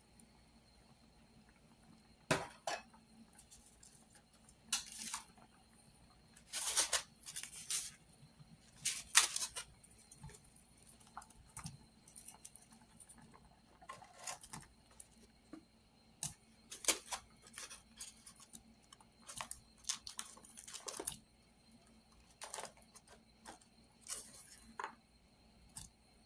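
Chopped onion and celery being added to a pot of boiling broth: about a dozen short, irregular splashes and clatters, some close together, over a faint steady hum.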